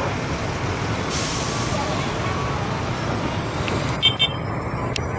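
Engines of heavy haulage trucks carrying tanks, running in a steady low rumble as the convoy passes, with a short hiss of air brakes about a second in. Two sharp clicks come near the end.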